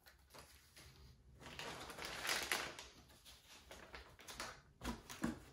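Packing material being handled in a plastic pistol case: a plastic bag crinkling and egg-crate foam rustling, loudest in the middle, followed by a few light clicks and knocks against the case near the end.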